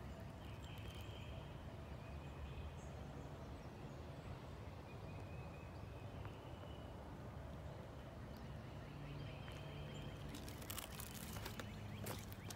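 Outdoor ambience: a low steady rumble with a few faint bird calls, then footsteps on loose dirt from about ten seconds in.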